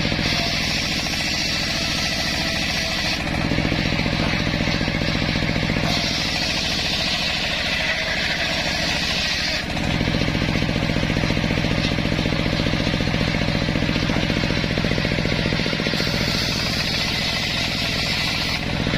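Home-built circular sawmill running steadily, its blade cutting through a waru wood log in three stretches of a few seconds each: at the start, in the middle, and near the end, with the machine running between them.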